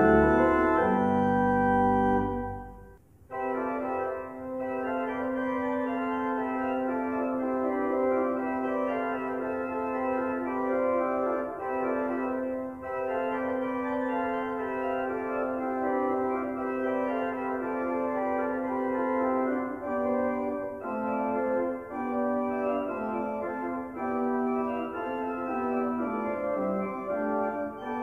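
Church pipe organ playing: a loud full chord with deep bass ends about three seconds in, and after a brief pause a quieter passage begins over a long held note, with moving notes above it.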